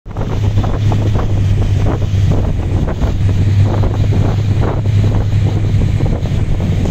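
Wind buffeting the microphone in irregular gusts, over the steady low hum of a boat's engine.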